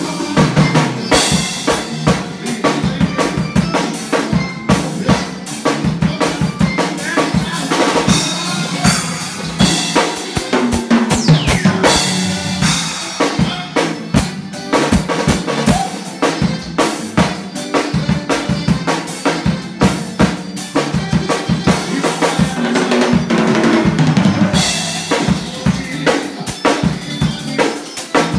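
A drum kit being played: a dense, continuous run of drum strokes, with stretches of bright cymbal wash.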